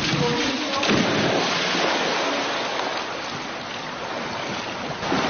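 A person jumping into a swimming pool, a splash a little under a second in, followed by steady splashing and churning of the pool water.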